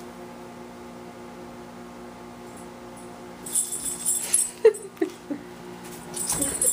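Beagle chewing and shaking a toy hedgehog: from about halfway through, bursts of metallic jingling, like collar tags, with a few short squeaks, the loudest at the very end. A steady low hum underlies it.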